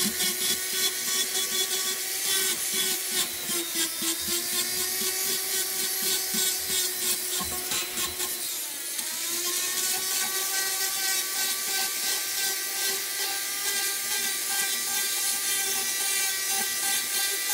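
Foredom flex-shaft rotary tool running steadily with a Saburrtooth carbide burr rasping over catalpa wood in light sanding and shaping. The motor's whine dips briefly in pitch about halfway through, then recovers.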